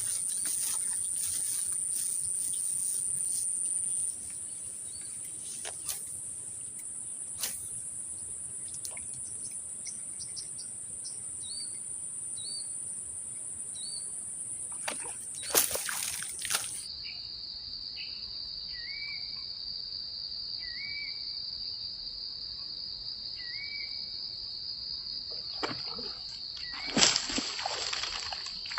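Insects, cricket-like, keep up a steady, high, unbroken drone, with a bird giving short, repeated chirps, three times in a row, twice. Two louder, sharp noises stand out, one about halfway through and one near the end.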